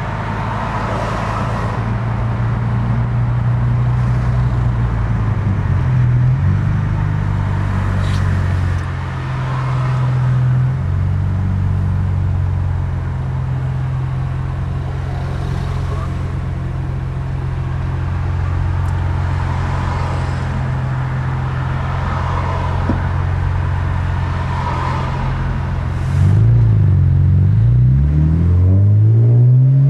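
BMW E46 M3's S54 straight-six heard from inside the cabin, running low and steady at city traffic speed, then a little before the end revving up hard several times in a row, pitch climbing and dropping back with each quick SMG upshift.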